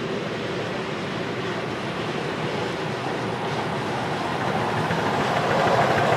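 Miniature steam railway train, double-headed by a 4-4-2 Atlantic and a 4-8-4 locomotive, running along the track toward the listener and getting louder in the last couple of seconds.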